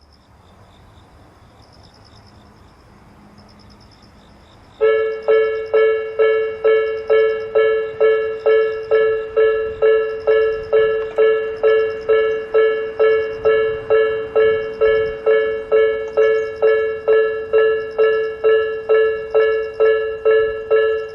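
Japanese railway level crossing warning alarm of the Nikko type, starting suddenly about five seconds in and then ringing steadily at about two strikes a second, each strike ringing out and fading before the next. The crossing's sounders ring close to in step.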